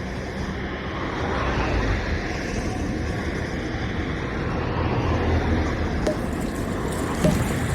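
Steady rumble of road traffic. A few short, faint sounds come near the end.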